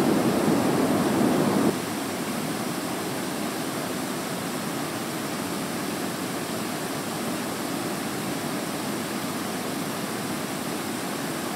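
Steady, even hiss of room tone, a little fuller for the first couple of seconds and then level, with no distinct events.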